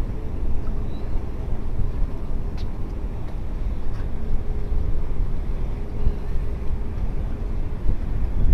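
Outboard motor of a passing cabin boat running steadily, heard as a low rumble with a faint steady hum, mixed with wind buffeting the microphone.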